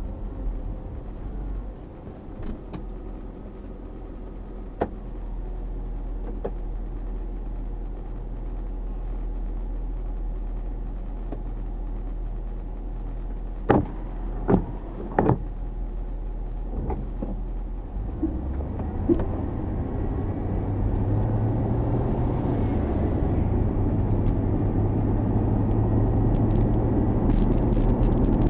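Chevrolet Tahoe on the move: a steady low engine and road rumble, with three sharp clicks about halfway through. The engine hum grows louder in the second half as the vehicle picks up speed.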